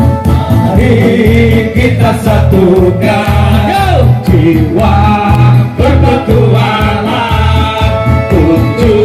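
Live music through a PA: several voices singing into microphones over an electronic keyboard backing with a steady, heavy bass beat.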